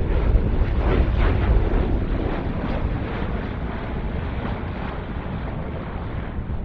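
V-22 Osprey tiltrotor flying low past, its proprotor and engine noise loudest about a second in and then slowly fading as it moves away, with wind on the microphone.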